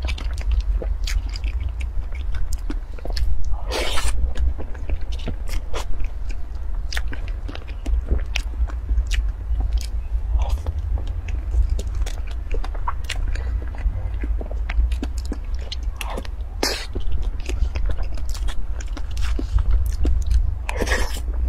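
Close-miked mouth sounds of eating a soft cream cake topped with dragon fruit: chewing and wet lip-smacking in many small clicks, with a few longer, louder sounds about four seconds in, after sixteen seconds and near the end. A steady low hum sits underneath.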